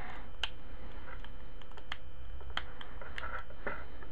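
Scattered light plastic clicks and rustling as an Apple 10W USB power adapter and its extension cord are handled and plugged together. A faint steady hum runs underneath.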